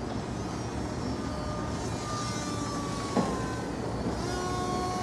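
Distant electric motor and propeller of a Volantex Firestar Pro mini RC glider in flight, a thin whine that dips slightly in pitch and then changes to a new, steadier pitch near the end as the throttle changes. Steady low rumbling noise underneath, with a single short knock about three seconds in.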